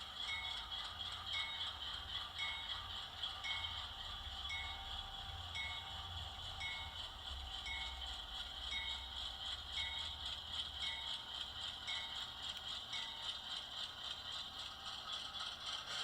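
HO scale model of a GE Dash 8-40CW diesel locomotive running on track, its LokSound 5 decoder playing diesel engine sound through a small onboard speaker, with a light click about once a second.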